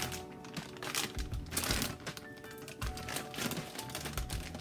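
Plastic bag of shredded cheese crinkling and rustling in several bursts as it is handled and shaken out, over background music.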